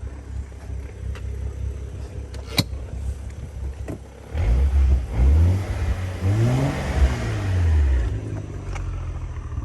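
BMW N55 turbocharged straight-six idling with its exhaust opened, then revved: a couple of quick throttle blips about four seconds in, then a longer rev that rises and falls back to idle near the end.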